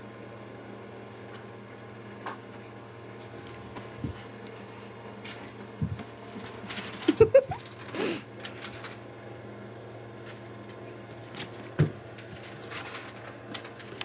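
Soft rustling and scattered light knocks from a cat pawing and shifting about on a fur stole on carpet, over a steady low room hum; a brief louder cluster of sounds about seven seconds in and a single thump near the end.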